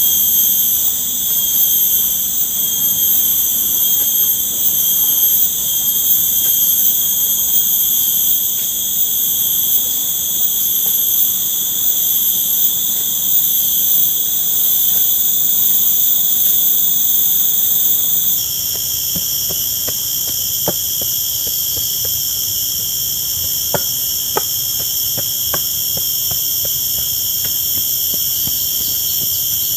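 Crickets and other insects trilling in a dense, steady chorus, a shrill sound layered in several pitches. About eighteen seconds in the chorus shifts abruptly, and after that scattered faint ticks come through it.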